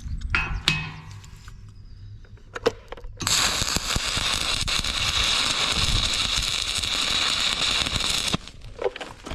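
Electric arc welding on steel: a steady, crackling sizzle that starts suddenly about three seconds in, runs for about five seconds and cuts off sharply as the weld is stopped. A few sharp knocks come before it.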